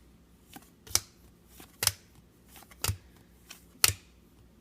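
Topps Star Wars trading cards being flipped through one at a time, each card giving a short sharp snap, four loud ones about a second apart with fainter rustles between.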